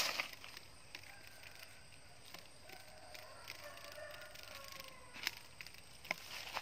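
Footsteps crunching on dry leaf litter on a forest floor: a few separate steps, the loudest right at the start and two more near the end. Between them, faint wavering tones rise and fall in the background.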